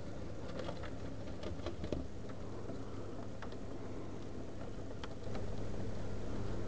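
Model steam locomotive 232 U 1 running slowly along the track: a steady electric motor hum with scattered small clicks of the wheels on the rails. The noise gets louder about five seconds in and stops abruptly near the end.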